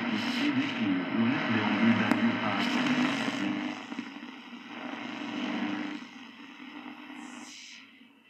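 Grundig 3160 valve radio's loudspeaker receiving a weak long-wave station buried in static and hiss. The sound drops away in steps over the last few seconds as the set is tuned off the station.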